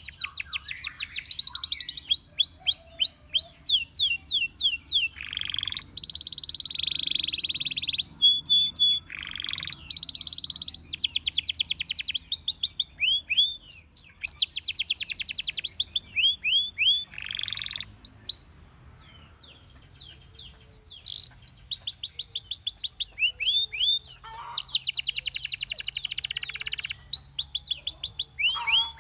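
Canary singing: runs of quick, repeated falling whistled notes alternating with dense, rapid trilled rolls, high-pitched. The song breaks off for a pause of a couple of seconds about two-thirds of the way through, then resumes.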